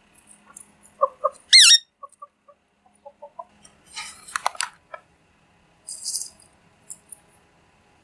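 Rose-ringed parakeets calling: a couple of short chirps, then one loud high whistle-like call about a second and a half in, followed by scattered soft notes. Around four seconds in there is a brief clatter of clicks and a rasp, and a short hiss a couple of seconds later.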